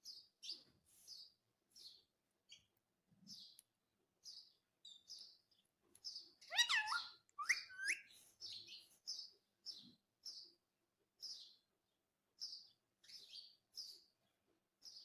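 Indian ringneck parakeet giving short high chirps, about one or two a second, with a louder call that sweeps down in pitch about six and a half seconds in.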